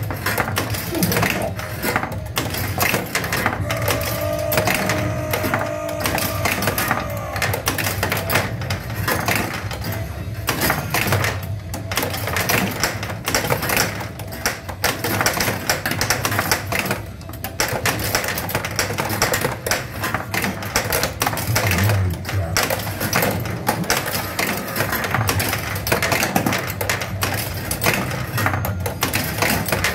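Stern Black Knight: Sword of Rage Premium pinball machine in play: a dense, steady run of clicks and clacks from its switches and solenoids, under the game's sound effects and music. A held tone sounds from about four to seven seconds in.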